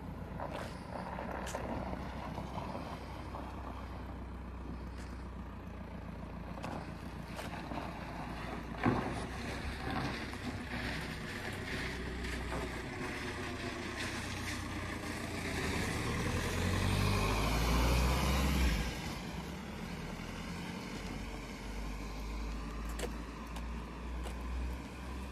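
A road vehicle passing on the street, swelling to its loudest about three-quarters of the way through and then dropping away, over a steady low rumble.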